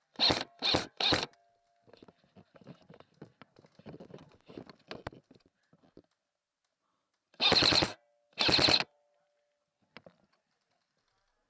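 Airsoft gun firing short bursts, heard loudly through the gun-mounted camera: three quick bursts at the start and two more about seven and a half seconds in. Faint clicks and rustling of gear handling come in between.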